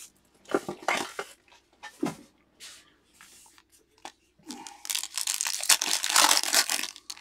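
Foil trading-card pack wrapper rustling and being torn open and crinkled by hand. The first few seconds hold scattered light rustles and clicks, and a dense crinkle starts about halfway through and is loudest near the end.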